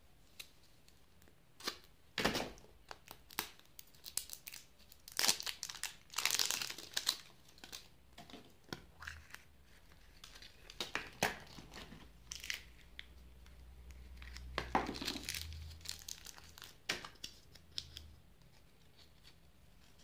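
Printed plastic wrap torn and crinkled off a yellow plastic surprise egg, then sharp clicks as the plastic capsule is pried apart: irregular crackles and snaps.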